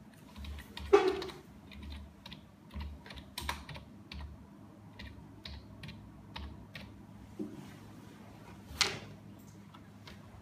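Computer keyboard being typed on: an uneven string of key clicks as a team name is entered letter by letter, with two louder knocks, one about a second in and one near the end.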